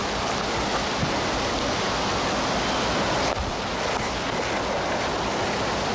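Steady, even rushing noise on the microphone with no distinct events: wind buffeting or hiss from a wireless microphone link.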